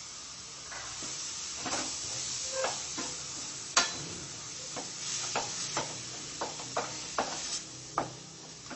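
Onion-tomato base sizzling in a hot stainless steel pan, cooked without oil. A spoon scrapes ground masala paste off a bowl into it and clinks repeatedly against the bowl and pan while stirring, with one sharp clink just before four seconds in the loudest.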